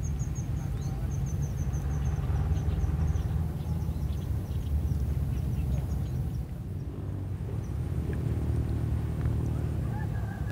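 Strong wind buffeting the microphone, a steady low rumble. A small bird chirps in a quick run of repeated high notes over the first few seconds.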